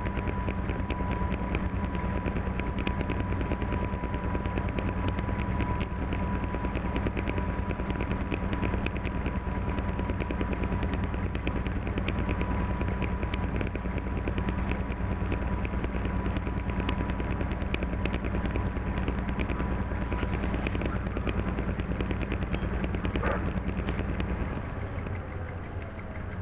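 Diesel engine of a class 731 banking locomotive running, heard in the cab as a steady low drone with a fast, continuous clattering rattle and a thin steady high tone that fades out about 20 seconds in. Near the end the low engine drone drops away, as when the power is eased off.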